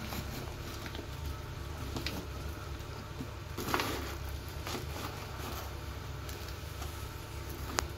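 Plastic scoop scraping and sifting through granular clumping cat litter, with granules rattling and a louder scrape about four seconds in. A steady low hum runs underneath.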